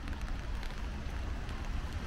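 Steady rain, with scattered drops ticking lightly, over a constant low rumble.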